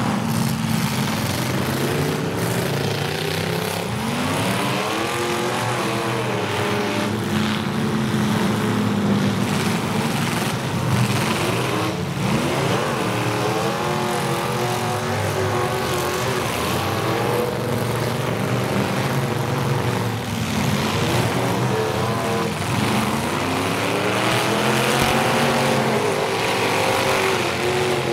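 Engines of several full-size demolition derby cars running at once, revving up and down again and again as they drive and manoeuvre.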